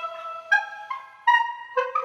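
Background music: a single melody line played on a wind instrument, one held note after another, changing about every half second.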